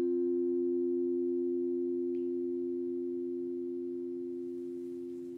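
A single low-pitched bell, struck once just before, ringing on and slowly fading with a gentle waver in its tone. It is rung at the elevation of the chalice during the consecration at Mass.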